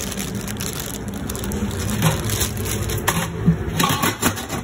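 Handling of a thick plastic bag of cream cheese and a metal steamer pot: rustling and a few short knocks, the loudest between about two and four seconds in, over a steady low hum.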